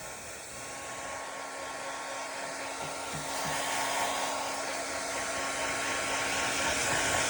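Hair dryer blowing on fan only, with no heat: a steady rushing with a faint whine, growing gradually louder.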